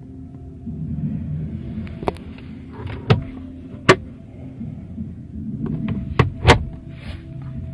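Hyundai Elantra N glovebox being opened and shut: a handful of sharp plastic clicks and knocks from the latch and lid, the loudest as the lid is pushed closed near the end. A steady low hum sits underneath.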